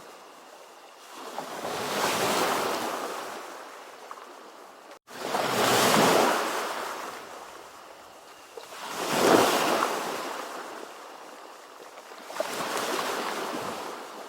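Ocean waves breaking and washing in, four surges of rushing surf about every three to four seconds, each swelling and then fading. About five seconds in, the sound drops out for a split second, and the next wave starts abruptly after the gap.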